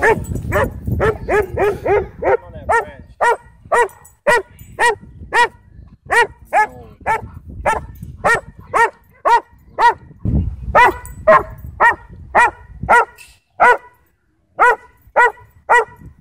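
A dog barking over and over in short, pitched barks, about two a second, with a brief pause near the end.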